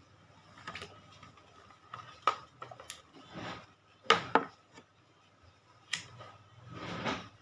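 Hands handling a small plastic fan: a few sharp irregular clicks and knocks with short rustles in between.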